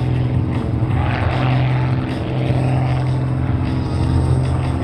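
Propeller and piston engine of an MXS aerobatic monoplane in flight, a steady low drone with slight swells in level.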